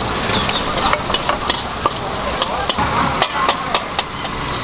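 A metal ladle stirring, scraping and tapping in a steel wok, with a run of sharp clinks in the second half, over a steady low engine rumble.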